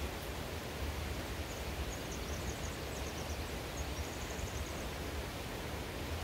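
Steady rushing of running water, with a small bird's quick, high chirps from about a second and a half in until near the end.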